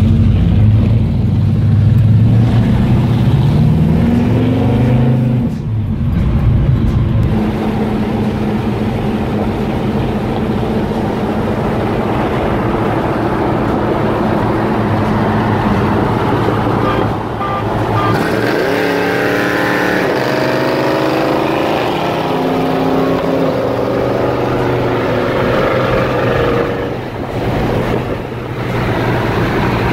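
American V8 engines heard from inside the cabin of a 1970 Chevrolet Nova, with a 1971 Chevelle running alongside. The engine note rises as the car accelerates about two to five seconds in and again around eighteen seconds, and holds steady at cruise between.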